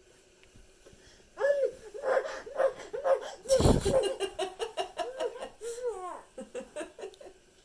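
Baby laughing in a long run of short, high-pitched giggles that starts about a second and a half in, with a soft thump about halfway through.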